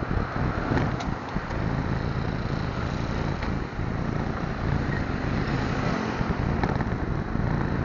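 Steady road-side vehicle noise: engine rumble and passing traffic, with a few light clicks.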